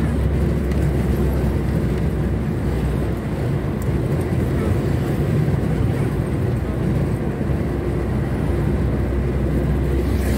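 Steady low drone of engine, tyre and road noise heard inside the cabin of a square-body Volkswagen Voyage cruising on a highway.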